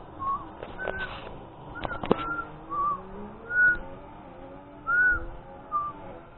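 Puppy whimpering: a string of about eight short, high whines that rise and fall in pitch, with a few sharp handling clicks in the first couple of seconds.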